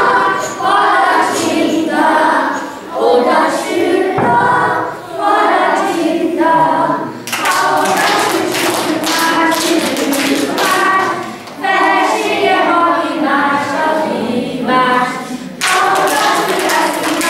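A group of young children singing a song together in chorus, with hand clapping joining in from about seven seconds in.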